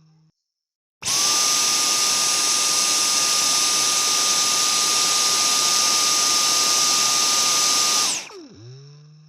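Vacuum cleaner switched on: the motor spins up fast, runs steadily with a high whine over a loud rushing hiss for about seven seconds, then is switched off and winds down with a falling pitch that fades out.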